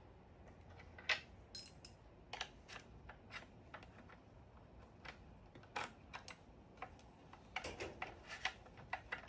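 Scattered sharp clicks and taps of an Allen key working the small bolts of a motorcycle's front panel as they are undone. They come irregularly from about a second in, bunching more closely near the end.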